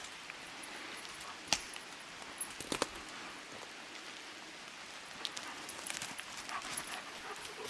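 Footsteps and snapping twigs on a forest floor of sticks and debris, with a few sharp cracks about a second and a half in and again near three seconds, and lighter ticks later, over a steady hiss.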